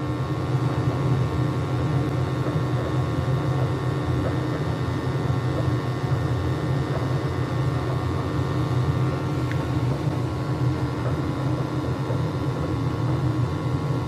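Gas burner of a Weil-McLain hot water boiler firing, a steady low rumble with a constant hum, as its gas valve pressure is turned down to lower the high carbon monoxide in its flue gas.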